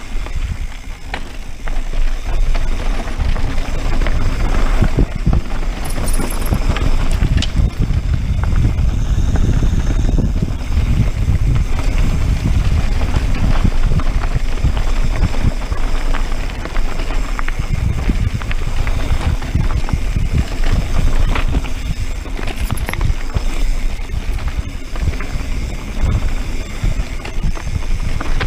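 Wind buffeting an action camera's microphone as a mountain bike rolls fast down a dirt and rock trail, with tyre crunch and frequent knocks and rattles from the bike over bumps and stones.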